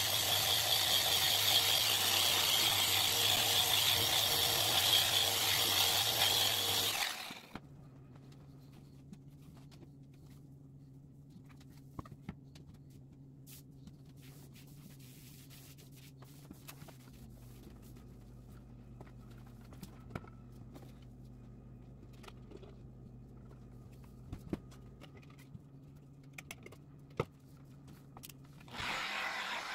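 Random orbital sander running on a plexiglass sheet, stopping suddenly about seven seconds in. After that only a low steady hum and a few small clicks and rubs from a cloth wiping the sheet. Just before the end a rotary polisher starts up.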